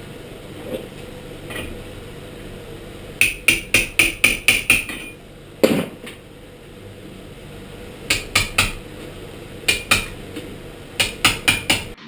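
Light hammer taps on metal with a bright ring, coming in quick runs of three to eight taps, about five a second, with one duller, deeper knock near the middle.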